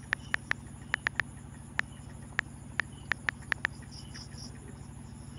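iPhone on-screen keyboard clicks, about a dozen quick, irregular taps over the first three and a half seconds as a password is typed. Underneath runs a steady low hum from a machine running nearby for a fish pond.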